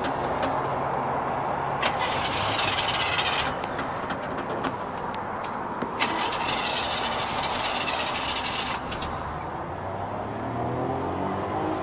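1970 Chevrolet C10 pickup's engine running after a difficult start, with scattered clicks and a rise in pitch near the end as it revs.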